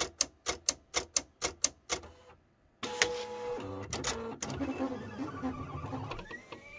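Silhouette Cameo 3 vinyl cutter: a fast, even run of clicks, about five a second, for the first two seconds. After a brief silence its motors run steadily, with tones that shift and step, as it starts cutting the vinyl.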